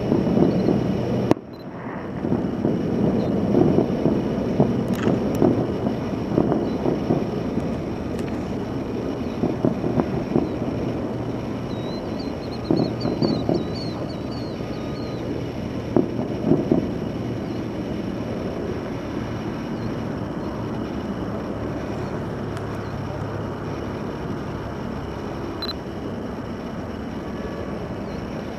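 Distant fireworks display: a continuous low rumble of booms merging together, with a few sharper pops standing out, loudest early on and easing off later.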